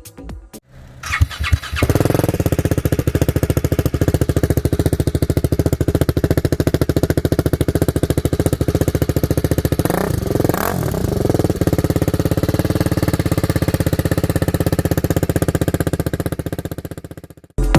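TVS Apache RR310's single-cylinder engine with an aftermarket Akrapovic-style exhaust, cranked and catching about two seconds in, then idling with a steady pulse. There is one quick throttle blip about ten seconds in, and the engine stops near the end.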